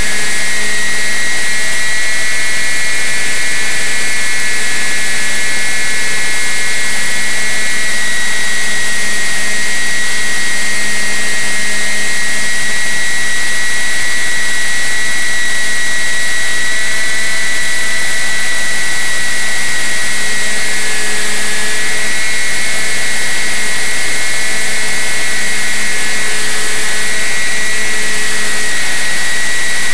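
Radio-controlled flying wing's motor and propeller running in flight, heard loud and close from a camera on the wing: a steady high whine whose pitch drifts slightly with the throttle, over a dense rush of wind and propeller noise.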